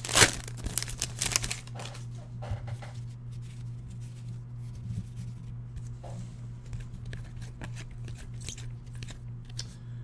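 Trading-card pack wrapper being torn open and crinkled in hand, loudest in the first two seconds, followed by quieter rustling as the cards are handled. A steady low hum runs underneath.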